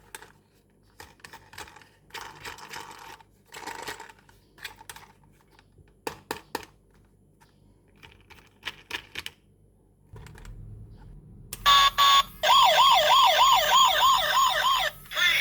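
Scattered crinkles and clicks of toy packaging being handled, then about eleven seconds in a toy police car's electronic siren switches on: a loud warbling wail that wavers up and down about three to four times a second.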